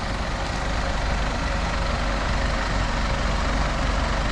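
Vehicle engines running steadily, with a low rumble: a pickup truck pulling a bus that is stuck in deep mud on a tow strap.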